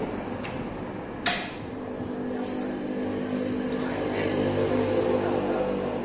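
A vehicle engine droning past, swelling in the middle and fading, with one sharp click about a second in.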